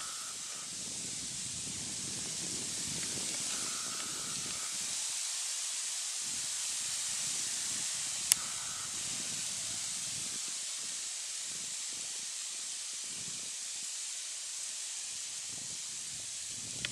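Steady high-pitched hiss, with soft low rustling in the first few seconds, a brief faint whine twice, and a single sharp click about eight seconds in.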